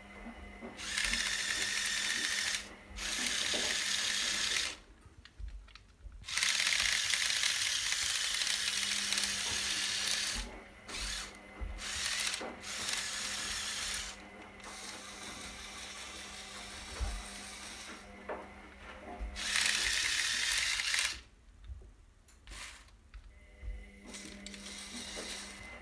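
Lego electric motors and gear trains whirring in repeated bursts of one to four seconds with short pauses between, with gear chatter.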